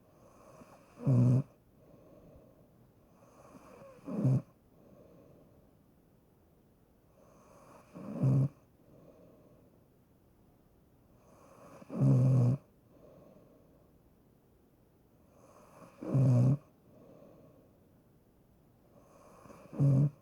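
A person snoring in a slow, even rhythm: a loud snore about every four seconds, six in all, with a softer breath between each.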